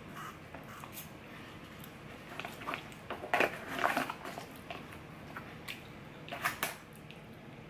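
A metal fork clinking and scraping in aluminium foil takeout trays, with the foil crinkling as food is pulled apart by hand. The clicks and rustles are scattered, with a busier cluster about three to four seconds in.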